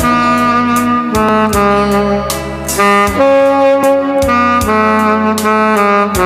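Instrumental gospel hymn: a held, singing lead melody over a bass line and a drum beat, with no voice.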